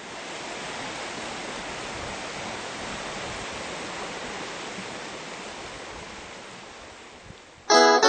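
Steady rushing of a creek running over rocks, slowly fading. Near the end a string band's acoustic guitar, banjo and mandolin strike up loudly.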